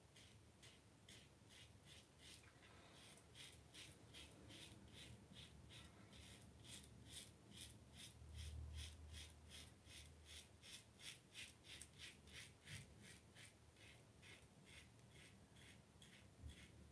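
Faint, quick scraping strokes of a double-edge safety razor cutting through lathered stubble on the neck, about three strokes a second in a steady run.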